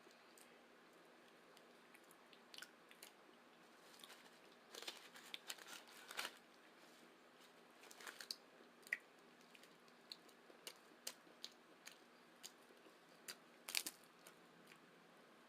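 Taco being eaten close to the microphone: faint, scattered crunches and wet clicks of biting and chewing, thickest about five to six seconds in, with the sharpest crunch near the end.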